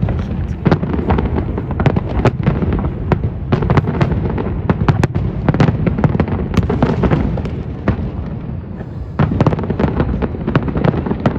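Fireworks going off in rapid succession: many overlapping bangs and crackles, easing off briefly about eight seconds in before the bangs pick up again.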